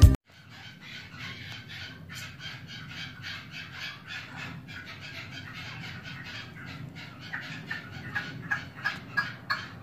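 Caged male red-legged partridges (decoy birds) calling: a rapid series of short, repeated clucking notes, about four or five a second, getting louder and sharper near the end.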